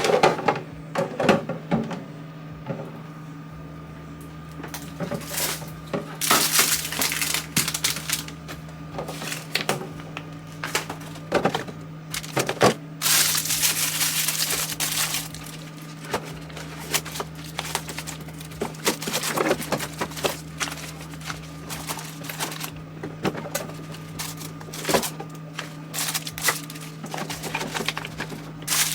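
Small toiletry items and plastic storage bins being handled during bathroom drawer organizing: scattered clicks and knocks with occasional stretches of rustling, over a steady low hum.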